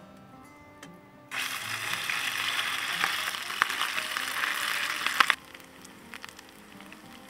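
Grated potato pancake batter frying in hot oil in a small camping pan: a loud, dense sizzle with sharp crackles. It starts abruptly about a second in and cuts off abruptly about a second and a half before the end.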